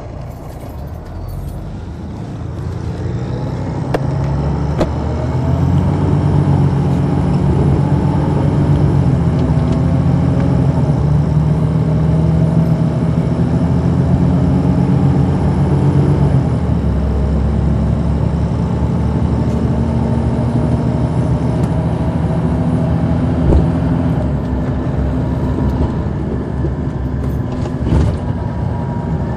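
Detroit Diesel Series 60 diesel engine of a 2002 MCI D4000 coach, heard from inside the cabin at the rear of the bus, running under load. It grows louder and higher in pitch over the first several seconds as the coach pulls away, holds steady, and its pitch steps down about halfway through.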